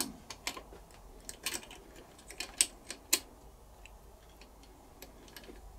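Bobbin carrier and rotating hook of a Singer 201K sewing machine clicking as the carrier is worked back into place by hand: scattered light clicks and ticks of small metal parts, the sharpest about three seconds in.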